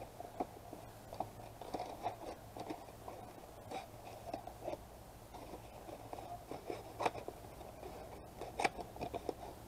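Faint, irregular crackling and rustling with small clicks, as something is handled close by, and a few sharper ticks in the last few seconds.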